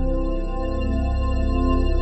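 Slow ambient music of long held keyboard chords, with the bass note changing about half a second in.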